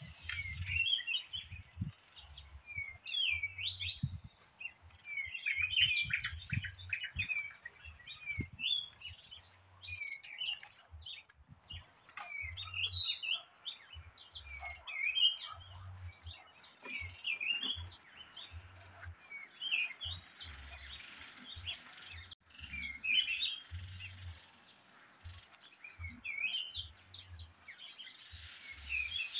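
Several small birds chirping and twittering, a rapid run of short calls that goes on with brief pauses, with irregular low rumbles underneath.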